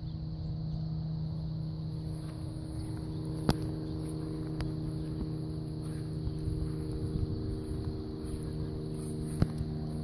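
A steady motor hum over a low rumble, broken by two sharp clicks, one about three and a half seconds in and one near the end.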